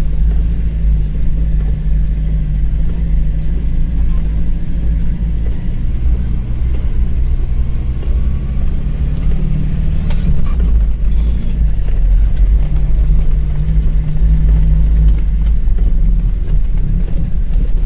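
Off-road vehicle's engine running steadily at low speed, heard from inside the cab: a deep rumble with a level engine hum. A single sharp knock about ten seconds in.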